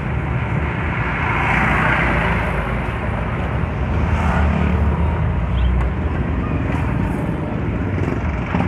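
Steady engine and road noise of a moving owner-type jeep, heard from on board, with traffic around it. A brighter rush of noise swells up about a second or two in and fades.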